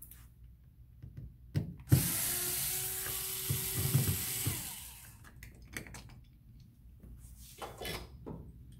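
Cordless drill/driver running for about three seconds, backing out the screw of the plastic cover over a chest freezer's power-cable entry, followed by a few light knocks as the tool and cover are handled.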